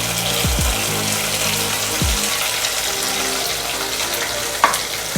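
Wet radhuni and green chilli paste sizzling steadily in hot mustard oil, a watery hiss from the wet paste hitting the oil, with one sharp tap about four and a half seconds in.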